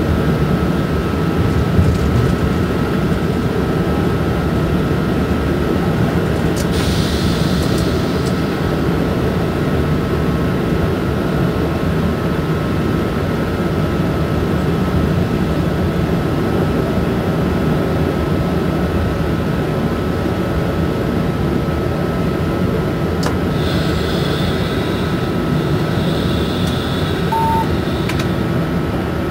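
Inside the cab of an SNCF BB 27300 electric locomotive running along the line: a steady low rumble of wheels on rail with a constant thin whine. A short hiss comes about seven seconds in, and a longer hissing rush near the end as a passenger train passes on the next track.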